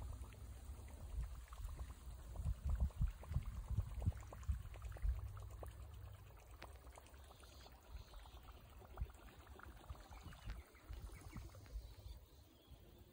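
Faint gurgling and splashing of a propeller topwater lure being retrieved across the lake surface, over a low rumble that fades after about five or six seconds.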